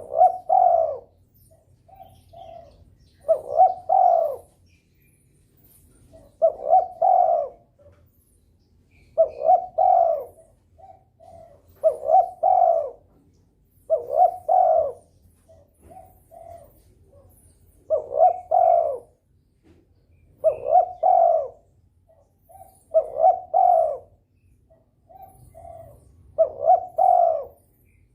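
Derkuku dove cooing over and over, about ten phrases, each a short lead-in note and a longer rolling coo every two to three seconds. The bird is in breeding condition and calling keenly, the kind of cooing used to set other doves calling.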